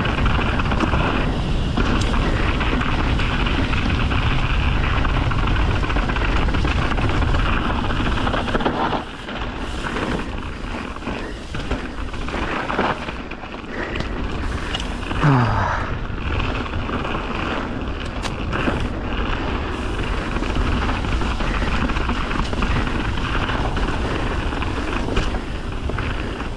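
Mountain bike riding a dirt trail, with steady wind rumble on the microphone over tyre noise. The noise eases briefly about nine seconds in, and a few clicks and knocks from the bike follow.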